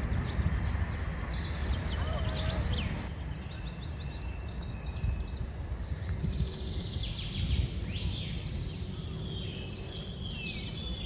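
Several small birds chirping and singing in short trills, over a low outdoor rumble that is heavier for the first three seconds.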